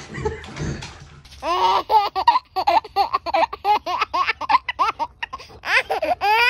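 Baby laughing hard: a quick run of high-pitched giggles, about four a second, ending in a longer squeal.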